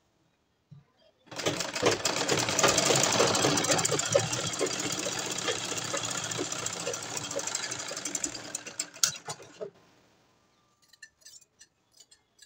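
Straight-stitch sewing machine running steadily as it stitches a seam. It starts about a second in, grows gradually quieter, and stops after about seven seconds, followed by a few clicks.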